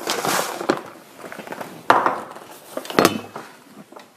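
Plastic rice bag crinkling, then two sharp knocks of kitchenware being set down, about a second apart.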